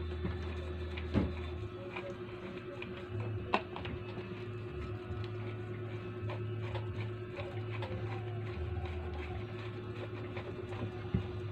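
Quiet background music with a low bass line that shifts every second or two, over a few light knocks and rubbing as a sisal-wrapped cat scratching post is handled and twisted onto its plush-covered platform.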